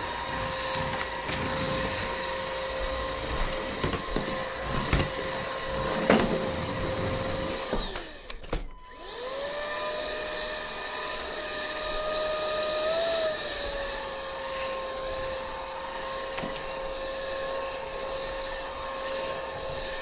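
ORFELD EV696 Pro cordless stick vacuum running in auto mode: a steady motor whine, with a few light knocks from the brush head. About nine seconds in, the sound drops out for a moment and the whine climbs back up to speed. A few seconds later it rises briefly in pitch and settles again.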